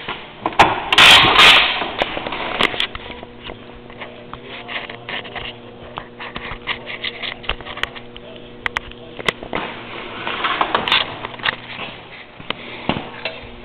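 Handling and rummaging noises: scattered clicks, knocks and rustling, with a loud rustle about a second in, over a steady low hum.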